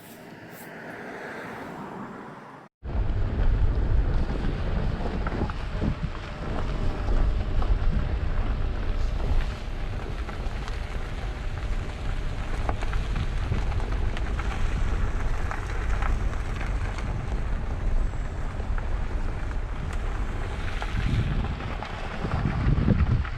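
Wind gusting across the microphone, a loud buffeting rumble that swells and eases irregularly. It starts abruptly about three seconds in, after a brief faint stretch.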